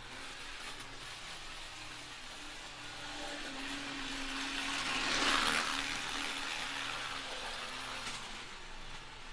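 Model train locomotive running on plastic track: a steady hum of its small electric motor with rolling wheel noise. It grows louder about halfway through as the locomotive passes close, then fades.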